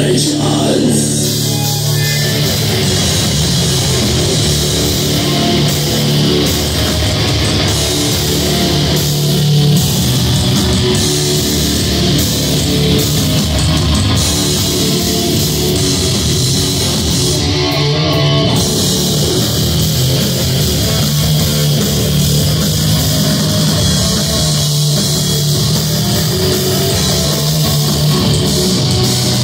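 Metal band playing live: distorted electric guitars and bass over a drum kit, dense and steady throughout.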